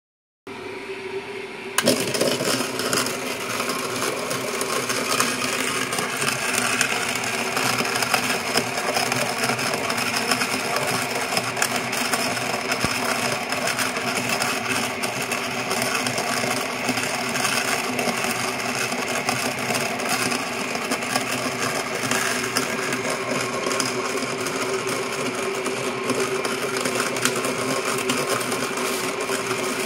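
A 6 W reversible AC gear motor (12.5:1 reduction) turning a cast-iron burr coffee grinder through a shaft coupling, grinding roasted coffee beans: a steady motor hum with a dense crackle of beans being crushed between the burrs. It starts about half a second in and gets louder about two seconds in, then runs evenly.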